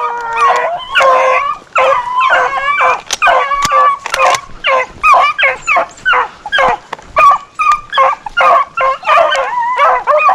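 Rabbit hounds baying on a rabbit's trail: a quick run of repeated barks and yelping howls, several a second and overlapping as more than one dog gives voice.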